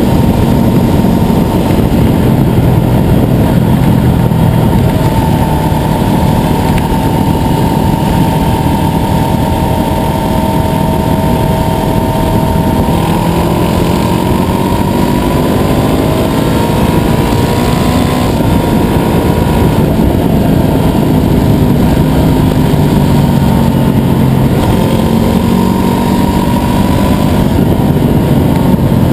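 2019 Honda CBR500R's parallel-twin engine running steadily and loud, its pitch shifting up and down partway through.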